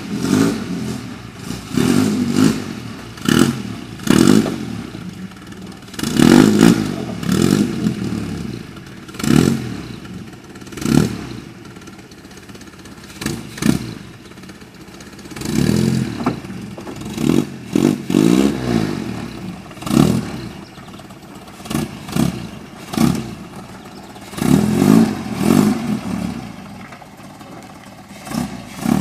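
Healey Silverstone's Riley four-cylinder engine revved in repeated short bursts of throttle as the car is manoeuvred, pitch rising and falling with each blip, with some clatter.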